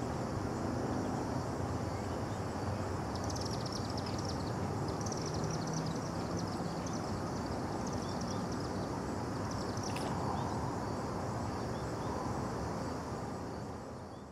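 Steady low rumble of distant traffic, with faint short high chirps from about three to ten seconds in and a single tick near the ten-second mark. The sound fades out at the end.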